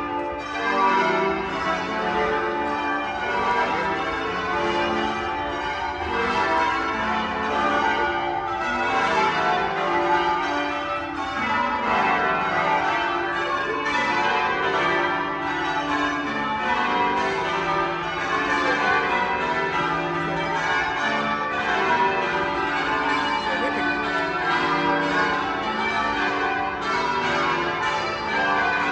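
A ring of twelve church tower bells rung in changes, the strikes following quickly one after another and overlapping into a continuous peal.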